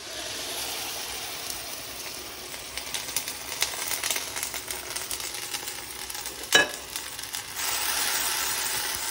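Minced onions sizzling in hot fat in a pan, the sizzle starting suddenly as they are tipped in. A single sharp knock comes about two-thirds of the way through, and the sizzle gets louder near the end.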